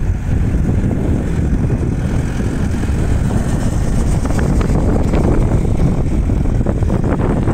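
Wind buffeting the microphone in a loud, choppy low rumble, with a tractor's engine running beneath it as it works the beach sand.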